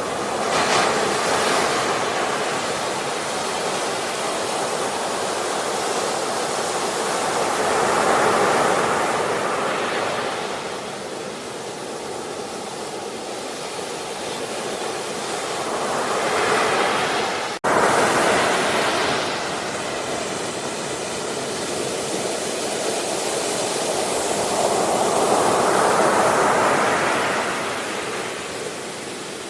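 Ocean waves breaking and washing up a shore, the surf swelling and falling back about every eight to nine seconds. The sound drops out for an instant about two thirds of the way through.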